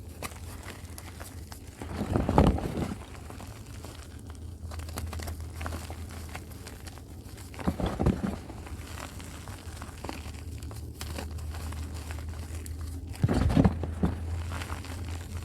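Dusty reformed chalk crushed and crumbled by hand. There are three louder crunches, at about two, eight and thirteen seconds in, with fainter crumbling between them and a steady low hum underneath.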